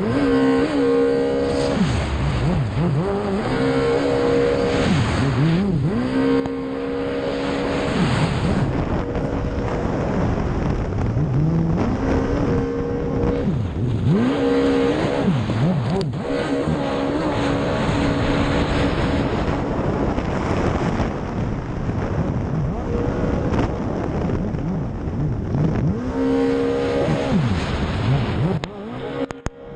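Racing watercraft engine running hard at high, steady revs, dropping off and climbing again several times as it goes round the turns, over the rush of water and wind. The sound dips sharply about a second before the end.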